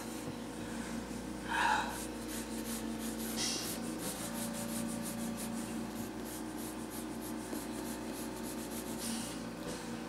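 Graphite pencil scratching and rubbing across sketchbook paper in many quick strokes, as she shades. A brief louder sound comes about two seconds in, over a steady low background hum.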